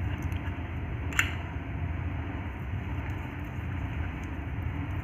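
Steady low rumble of a lit gas stove burner, with a single sharp spoon click about a second in as cinnamon powder and honey are stirred together.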